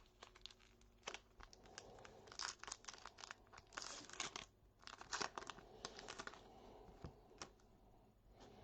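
A trading-card pack wrapper being torn open and crinkled, in several short, faint bursts of tearing and crackling among small clicks.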